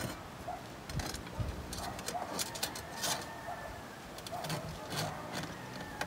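Scattered clicks and light knocks of hands working the clamp and mount of a motor on a folding boat's transom, with faint bird calls in the background.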